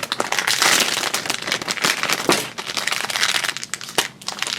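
Crinkling and rustling of a small plastic blind-bag wrapper being handled and torn open, a dense run of irregular crackles, busiest in the first second or so.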